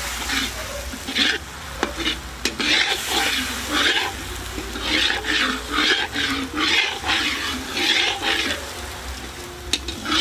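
Stirring utensil working through a pan of sizzling garlic, pineapple juice and soy sauce for humba: repeated stirring strokes, roughly one or two a second, over a steady sizzle.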